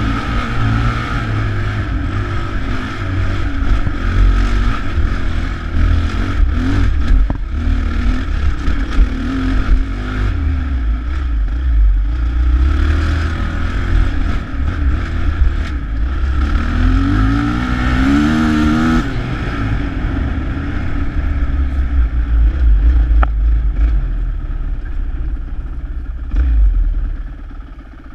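Dirt bike engine running as the bike picks its way along a rough, rocky trail. Its pitch climbs as it revs up about two-thirds of the way through, and near the end the engine note drops away sharply.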